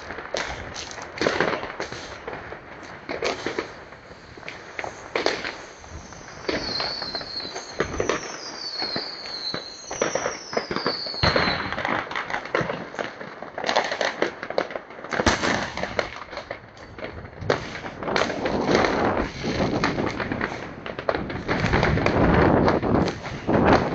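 Fireworks and firecrackers going off in a steady run of bangs and pops. Three falling whistles come one after another from about six to eleven seconds in, and the bangs thicken into a dense, louder barrage near the end.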